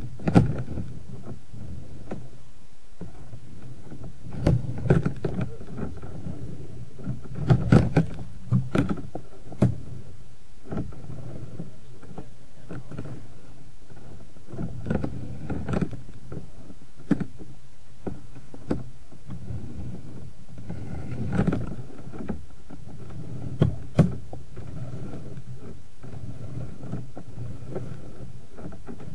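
Scattered knocks and low rumbles over a steady low background noise, as a sewer inspection camera's push rod is fed down the pipe.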